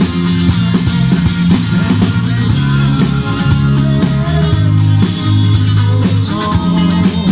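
Rock band playing an instrumental passage: guitar over held bass notes and a drum kit keeping a steady beat.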